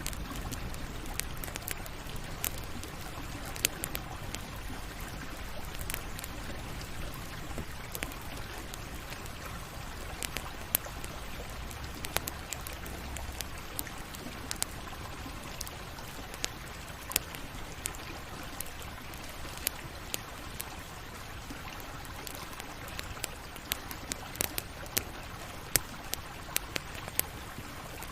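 Campfire burning: a steady hiss with frequent, irregular sharp crackles and pops from the burning wood, coming a little thicker near the end.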